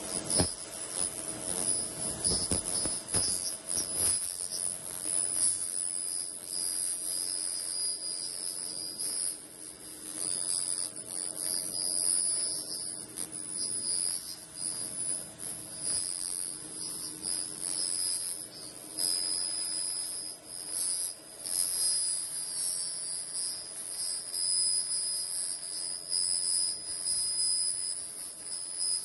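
Narran ROD500 handheld laser cleaner ablating rust and grease from a steel flange: a steady high-pitched buzz with a hiss that swells and fades as the beam moves over the metal. A low hum is heard for the first few seconds.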